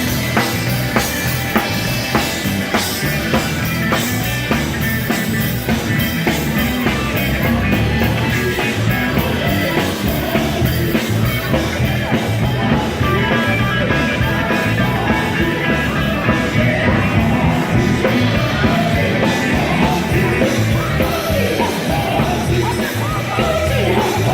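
Live gospel quartet performance: a band with drums keeping a steady beat, with voices singing over it.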